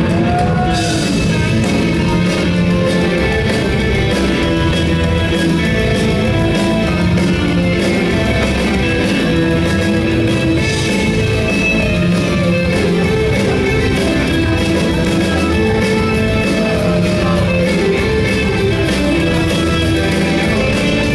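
Live rock band playing loud, with electric guitars and drums driving a steady rock groove.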